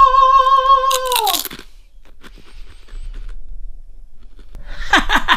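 A voice holds a long wavering sung note that fades out about a second and a half in, as a potato crisp is bitten with a loud crunch. Quieter crunching of the crisp being chewed follows, and a voice breaks in near the end.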